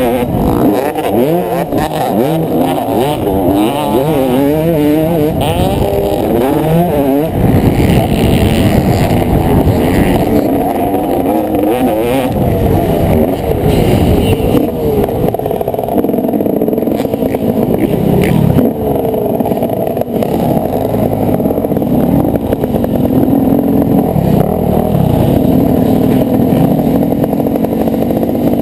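Motocross bike engine heard from its own onboard camera, revving hard with its pitch rising and falling at each throttle and gear change over the first several seconds, then running more steadily.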